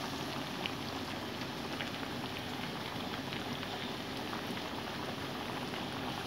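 Cream sauce boiling hard in a non-stick frying pan: a steady bubbling with small scattered pops.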